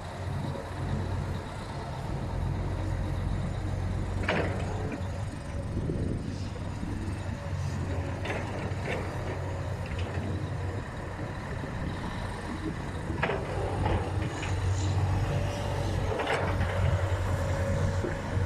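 Heavy diesel earthmoving machinery running steadily, with a low engine drone. Over it come several short knocks and clatters: one about four seconds in, two close together around eight to nine seconds, and more near thirteen and sixteen seconds.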